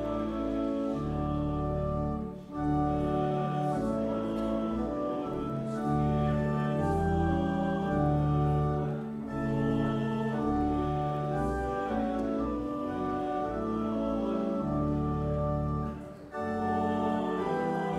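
Church organ playing a communion hymn in slow, sustained chords, with a brief break between phrases twice.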